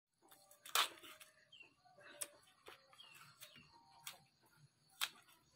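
Cassava root rind cracking and tearing as it is peeled off by hand: a handful of sharp snaps, the loudest about a second in and near the end. Faint bird chirps in the background.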